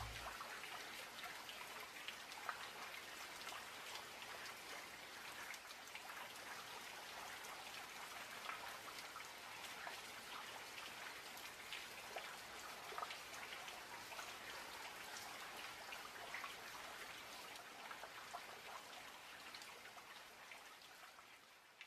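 Faint steady rain with many small drop ticks, fading out near the end.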